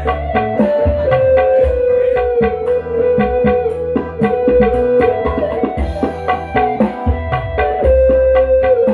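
Music played through an Ashley N1530 15-inch neodymium speaker under test, set unbolted in a wooden box, to show its low-mid sound. A held melody line and plucked strings run over drum strokes and a heavy bass line.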